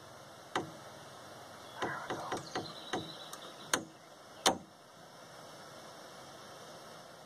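Handheld gas torch hissing steadily while heating a copper pipe joint for soldering, with a run of about nine sharp metallic clicks and taps from the work at the joint, the last one the loudest.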